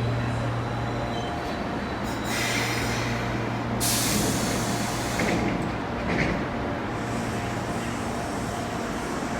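Osaka Metro train standing at a platform: a steady low electrical hum, with a hiss of released compressed air starting about two seconds in and growing louder near the middle before it stops, typical of the brakes or doors venting air.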